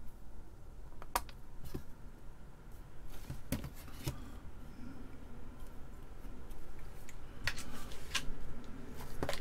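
Scattered light clicks and taps of a printed circuit board and small parts being handled on a workbench, as the board is turned over and set down on its solder side.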